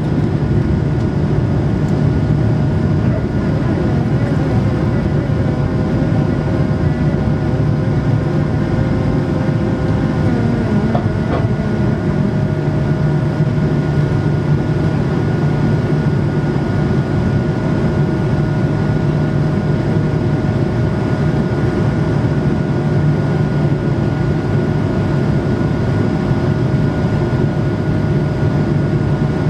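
Steady cabin noise inside an Airbus A220-300 with its Pratt & Whitney PW1500G geared turbofans running: a loud, even rush of engine and air noise with two steady tones held through it.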